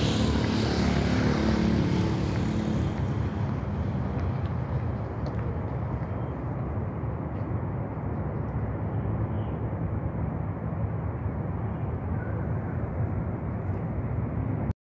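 Outdoor traffic noise: a motor vehicle passes, loud for the first few seconds and then fading, leaving a steady low rumble of traffic.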